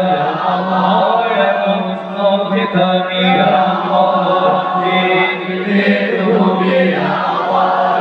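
Group of men chanting sholawat, Arabic devotional praise of the Prophet, together through loudspeakers, with a steady low tone held underneath.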